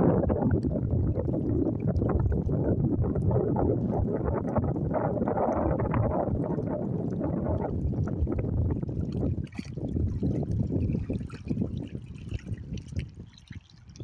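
Lake water lapping and sloshing in the shallows with wind rumbling on the microphone, a steady noisy wash that eases off about nine seconds in, leaving fainter small water sounds.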